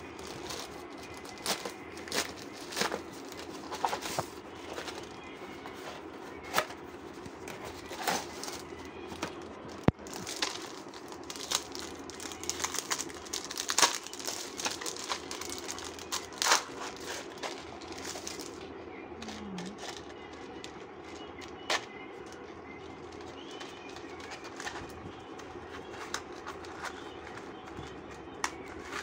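A plastic courier mailer and wrapping crinkling and rustling as hands tear open and unwrap a package, in short, irregular bursts.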